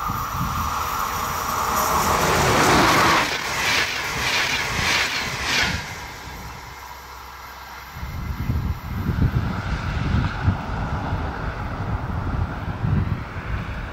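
Passenger train passing close at speed: a high tone drops in pitch as it goes by, then a quick run of wheel clatters as the coaches pass, ending about six seconds in. From about eight seconds in, wind buffets the microphone.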